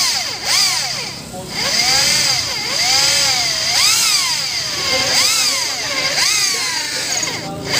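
Electric drill boring through a truck brake lining. The motor's pitch rises and falls about once a second as the bit bites and frees, with a brief dip about a second in.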